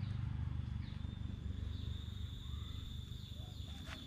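Tropical forest ambience. An insect's steady high-pitched tone comes in about a second in, with short bird chirps scattered over it, above a low rumble on the microphone that fades.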